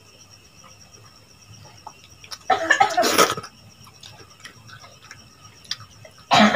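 A person coughing: one loud cough lasting under a second about two and a half seconds in, and another right at the end. In between, faint clicks of eating by hand from metal dishes.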